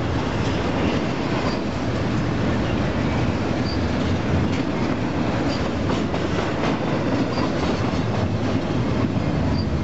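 Double-stack intermodal freight train's well cars rolling past: a steady rumble of steel wheels on rail with light clicking and faint short high squeaks about every two seconds.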